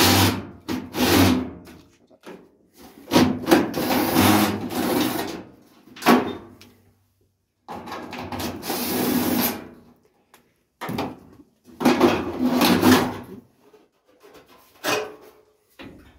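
Cordless drill-driver running in repeated bursts of one to two seconds, driving screws that fix a sheet-metal front panel to a car body shell.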